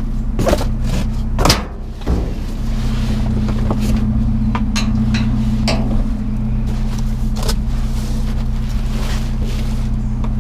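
A vehicle engine idling with a steady low hum, while junk is handled and knocked about, giving several sharp clatters, the loudest about a second and a half in.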